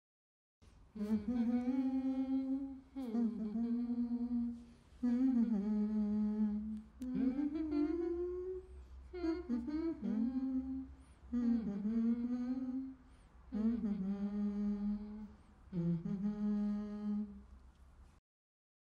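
A single voice humming a slow, wordless melody in about eight phrases of a couple of seconds each, starting under a second in and stopping shortly before the end.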